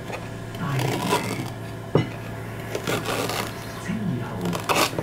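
Kitchen knife cutting through a knob of old ginger on a wooden chopping board: several short cuts, with a sharp knock about two seconds in.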